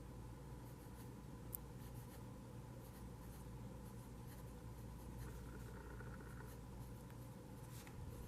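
Lamy Safari fountain pen with a fine steel nib writing on notebook paper: faint, irregular scratching of the nib strokes. A single sharp click about a second and a half in.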